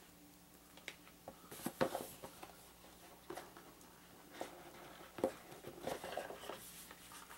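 Small cardboard board-game box handled on a wooden tabletop: faint, scattered taps, scrapes and rustles of cardboard at irregular moments, one a little louder about five seconds in.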